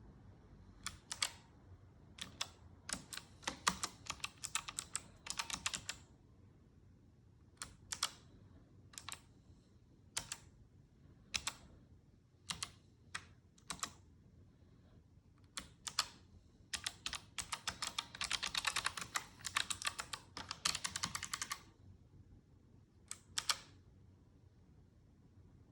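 Low-profile mechanical keyboard keys being typed on in bursts: scattered single key presses, with two fast runs of rapid clacking, one a few seconds in and a longer one past the middle.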